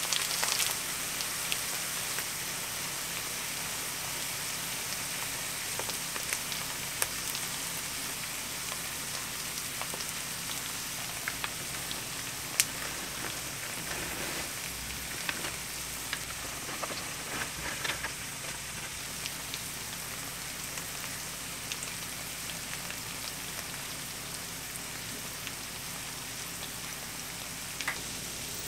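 Shredded potato frying in a nonstick pan: a steady sizzle, with a few light taps and clicks scattered through it, the sharpest about halfway in.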